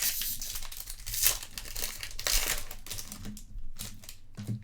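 Foil wrapper of a Topps Chrome trading-card pack crinkling and tearing as the pack is opened, with a dense crackle that eases off near the end.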